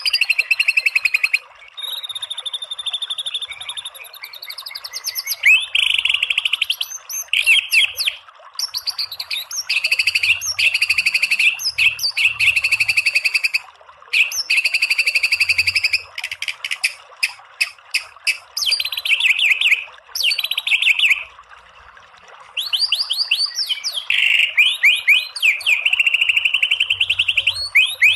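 White-rumped shama (murai batu) singing loudly: fast machine-gun-like trains of repeated notes ('tembakan') mixed with whistled glides and trills, in phrases broken by short pauses, over a faint steady hiss.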